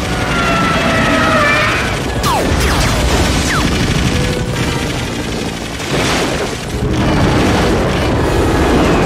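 Film action soundtrack: dramatic orchestral score mixed with booms and bursts of gunfire from a helicopter attack.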